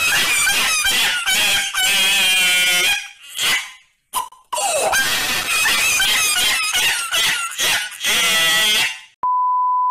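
Cartoon wheezing laughter sound effect: loud, squeaky, high-pitched gasping squeals in two long fits, broken by a short pause about four seconds in. Near the end a steady censor beep starts.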